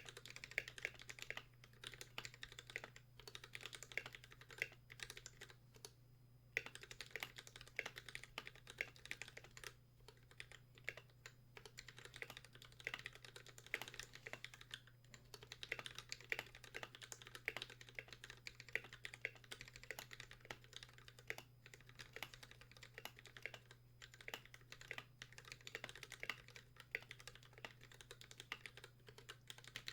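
Typing on an Idobao ID80 mechanical keyboard with Akko Pink v1 switches lubed with Super Lube and NK_ x Tai-Hao Cubic keycaps: a fast, uneven stream of key strokes with a few brief pauses, over a faint steady low hum.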